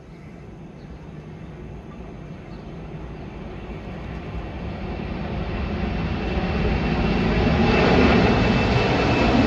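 Boeing 747's jet engines at takeoff power, a rushing roar with a faint steady whine, growing steadily louder for about eight seconds and then holding.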